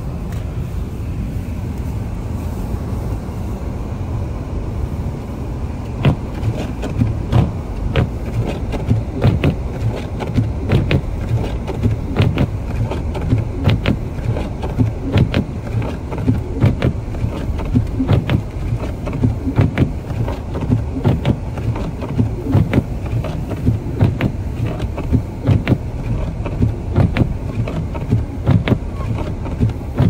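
Inside a car driving through deep snow: steady low road and engine rumble. From about six seconds in, irregular sharp clicks and knocks come through, one or two a second.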